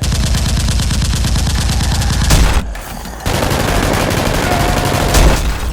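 Rapid automatic gunfire, two long bursts with a short pause between them.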